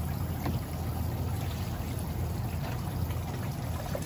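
Water trickling steadily in a bait shop's minnow tank, over a steady low hum.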